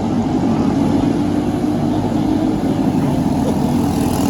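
Racing kart engine running steadily at high revs, with a fast, even buzz of firing pulses.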